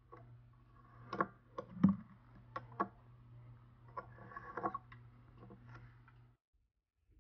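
A knife blade slicing a mound of red sand off the top of a full glass, with a run of sharp clicks and scrapes as it catches on the rim, the loudest a little under two seconds in. A steady low hum sits underneath and cuts off suddenly near the end.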